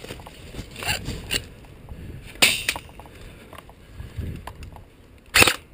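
Close handling noise from an airsoft player's gun and kit, scattered clicks and rustles over a low wind rumble, with loud sharp cracks about two and a half seconds in and twice in quick succession near the end.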